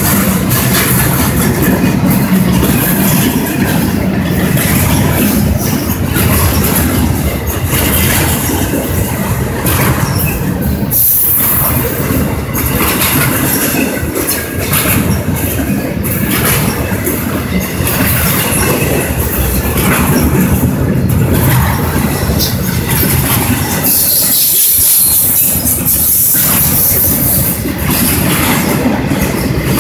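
Double-stack intermodal freight train rolling past at close range: a steady rumble and clatter of wheels over the rails. A high-pitched wheel squeal swells up about halfway through and again a little past two-thirds of the way.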